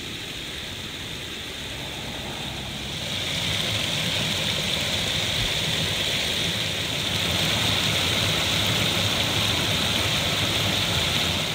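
Small stream cascading over a low rock ledge: a steady rush of falling water that grows louder about three seconds in.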